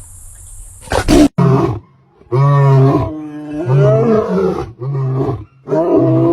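A big cat calling: a sudden loud burst about a second in, then a run of about five loud roaring calls, each lasting about half a second to a second and a half.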